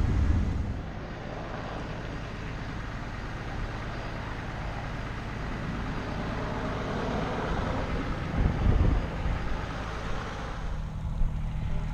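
Fire truck engine running under a steady rushing noise, its low hum coming through more clearly near the end, with a few low thumps about two-thirds of the way in.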